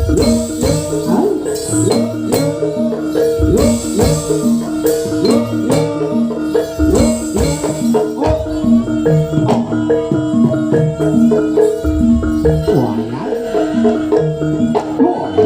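Jaranan gamelan accompaniment: bronze mallet instruments hammering out a fast repeating melody over regular drum strikes.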